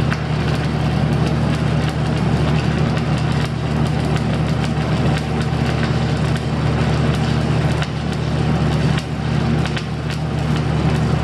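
Stick (shielded metal arc) welding: the arc crackles and spits steadily as a bead is run, over a steady low hum.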